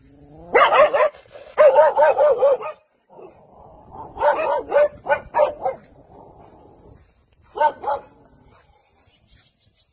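White Jindo dog barking in four bouts: a single bark, two quick runs of several barks each, and a closing pair.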